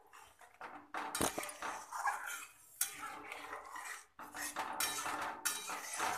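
A long metal spoon stirring watery curry gravy in a metal kadai, scraping and clinking against the pan in a run of irregular strokes.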